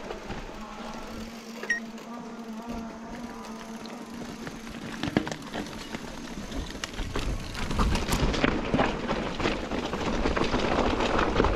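Mountain bike rolling over a dirt trail, heard from the handlebars: tyre noise and the rattle of the bike. It grows louder about two-thirds of the way in, with many sharp knocks and clatters as the bike rides onto loose rocks.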